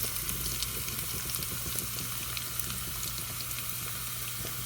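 Crushed garlic cloves frying in hot oil with dry chillies and fennel seeds: a steady sizzle peppered with small crackles.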